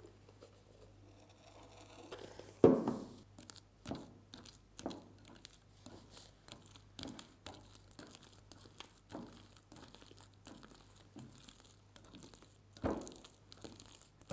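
A hand squishing and kneading fluffy shaving-foam slime in a glass bowl: irregular wet squishes with a crinkling, tearing crackle, the loudest squelch about two and a half seconds in and another near the end.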